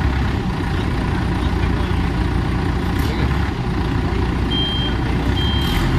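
A vehicle engine running with a steady low rumble, joined about four and a half seconds in by a series of evenly spaced, high-pitched electronic beeps.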